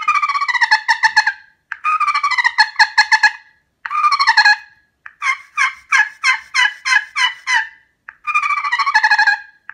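Slate turkey call played with a striker, making a hen's purr: five rolling, fluttering runs of about one to two seconds each, each sliding slightly down in pitch. The middle run breaks into separate notes at about four a second.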